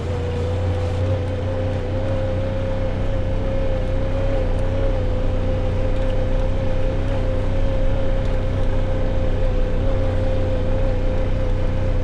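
Side-by-side off-road vehicle's engine running steadily at cruising speed, a low drone with a steady whine over it.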